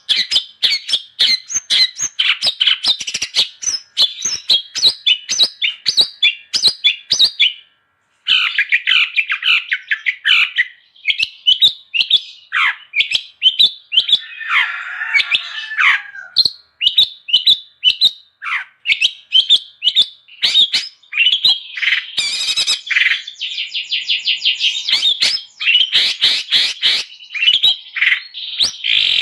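Long-tailed shrike (cendet) singing a fast, varied chattering song of sharp chirps, trills and short whistled glides, in full vigorous song. The song breaks off for a moment about eight seconds in.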